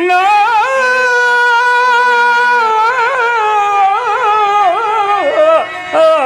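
A man singing a Telugu drama verse (padyam) in one long held, ornamented note with wavering pitch turns, accompanied by a harmonium holding soft steady notes underneath.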